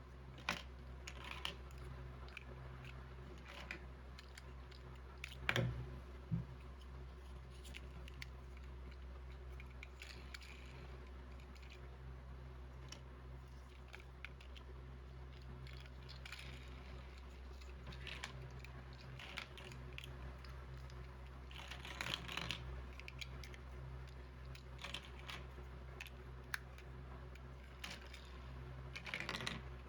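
Plastic toy building bricks being handled and pressed together: scattered small clicks and crunchy rattles, with a cluster of sharper clicks about six seconds in and short rustling bursts later on.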